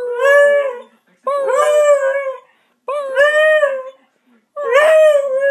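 Beagle howling: four short howls in a row, each about a second long, with brief pauses between them.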